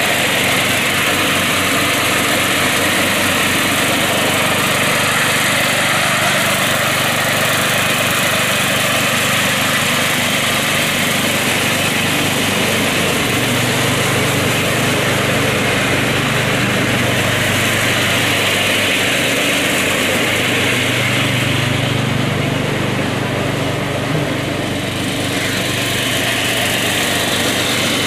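Murray 12 hp riding lawn mower, its rebuilt engine running steadily at working speed while it cuts long grass. The sound eases a little for a few seconds near the end as the mower moves off, then comes back.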